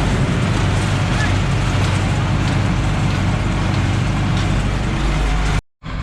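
Tractor engine running steadily with a low drone; the sound breaks off suddenly near the end and then comes back.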